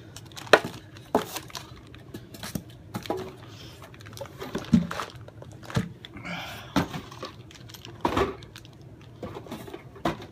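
Handling noise as a bagged car amplifier is taken out of its cardboard box and set down: scattered clicks and knocks of cardboard and plastic, with stretches of rustling.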